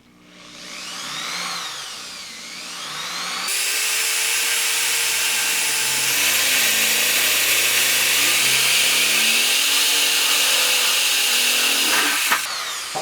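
Power drill boring a hole through a lid. The motor whine rises and falls in pitch for the first few seconds as the trigger is feathered, then the drill runs at full speed for about eight seconds and winds down near the end.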